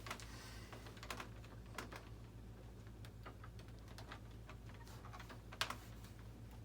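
Faint, irregular small clicks and taps from hands handling parts of a foam RC jet model, with one sharper tap near the end, over a steady low hum.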